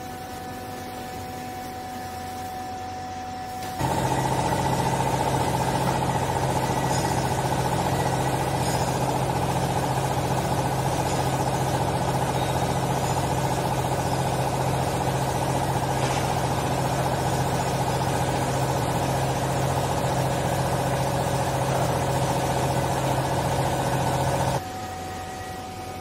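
Hydraulic power unit of a vertical clothing baler: a steady hum, then about four seconds in it loads up suddenly into a loud, steady mechanical drone as the press ram works. The drone cuts off sharply shortly before the end, and the quieter hum returns.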